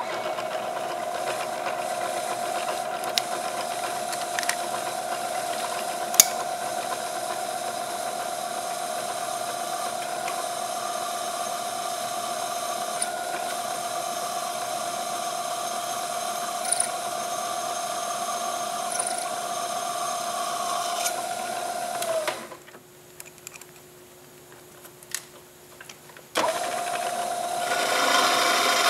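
Drill press running with a steady motor whine while a twist drill bores through a steel plate, with a few small clicks. Near the end the sound drops away for about four seconds, then comes back.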